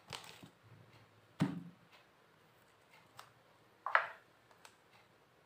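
A few short knocks and taps of a smartphone being picked up and handled, the loudest about a second and a half in and another about four seconds in, with faint room tone between.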